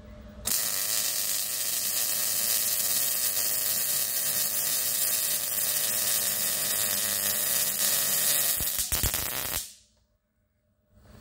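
MIG welding arc crackling steadily as one continuous bead is run on a steel tube, starting about half a second in and stopping sharply about a second and a half before the end.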